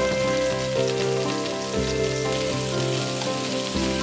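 Sliced eggplant and green peppers sizzling and crackling in a hot frying pan, with background music over it.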